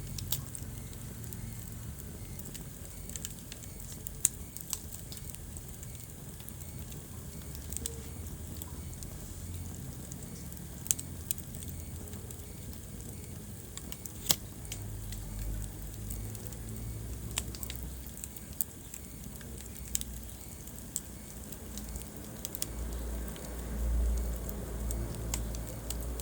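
Wood fire burning in a fireplace: scattered sharp crackles and pops over a low rumble of flames, the rumble swelling near the end.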